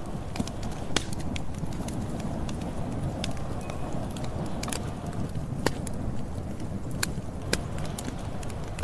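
Campfire burning: a steady low rumble of the flames with irregular sharp crackles and pops of the wood, the loudest coming about once a second.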